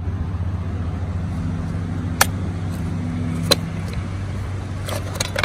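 Sharp plastic clicks from a Stihl 018C chainsaw's top cover being handled for removal: single clicks about two and three and a half seconds in, and a quick run of clicks near the end. Under them runs the steady low hum of an engine.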